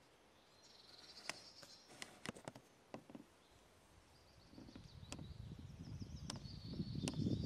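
Small birds trilling in a pine forest, with a few sharp clicks in between. A low rumble builds through the second half and is loudest near the end.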